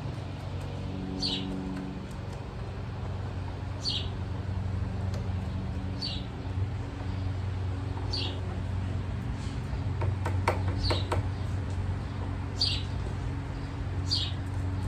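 A bird repeating a short, high, downward-sliding chirp about every two seconds, over a steady low hum. A quick cluster of clicks comes about ten seconds in.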